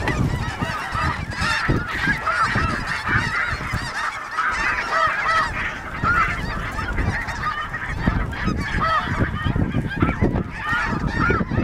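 A large flock of snow geese calling overhead: many short, high calls overlapping in a continuous chorus, with wind rumbling on the microphone underneath.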